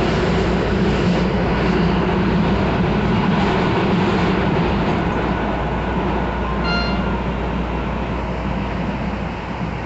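Miami-Dade Metrorail train car running along the elevated track, heard from inside the car: a steady low rumble and rush of wheel and rail noise that eases slightly over the last few seconds, with a brief high tone about seven seconds in.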